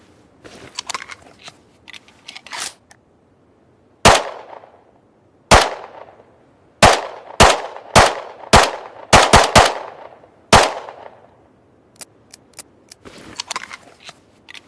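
Semi-automatic pistol firing about nine loud single shots. The first come a second or more apart, then faster, about two a second, each with a short ringing tail. Quieter mechanical clicks and rattles of the gun being handled come before and after the shots.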